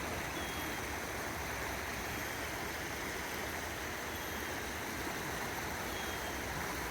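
Credit River water flowing, a steady rushing noise with no change in level.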